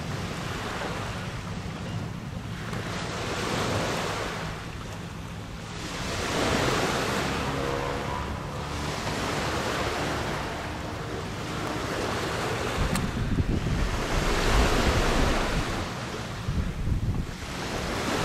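Wind buffeting the microphone in gusts that swell and fade every few seconds, over a steady low rumble.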